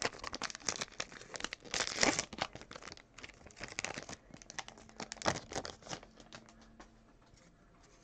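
A trading card pack's wrapper being crinkled and torn open by hand: a run of sharp crackles, loudest about two seconds in and again about five seconds in, dying away near the end.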